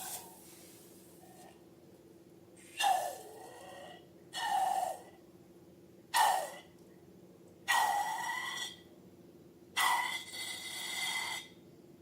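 Air escaping from balloons in six short hissing bursts, each with a faint whistle and a falling pitch.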